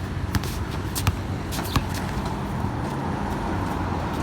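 A basketball bouncing on a court, three sharp bounces in the first two seconds, over a steady low background rumble.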